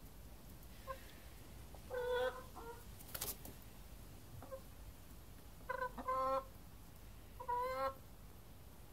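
A pet hen giving short, pitched calls in a few bursts: one about two seconds in, a quick run of them around six seconds, and one more near the end. There is also a brief sharp noise just after three seconds.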